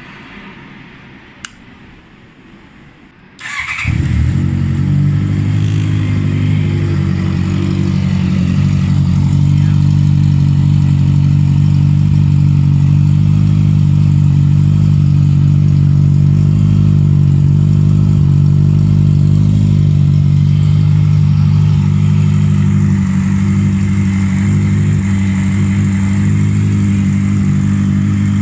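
Honda CB650F inline-four with a Two Brothers slip-on exhaust starting up about three and a half seconds in, then idling steadily and loudly.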